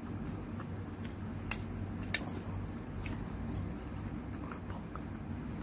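A person chewing a mouthful of fried noodles with the mouth closed, over a steady low hum, with a few sharp clicks, the clearest about one and a half and two seconds in.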